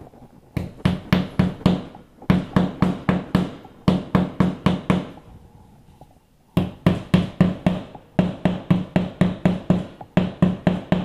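Wall anchors being tapped into the wall with the jaw of a pair of lineman's pliers: rapid knocks, about five a second, in six short runs with brief pauses between.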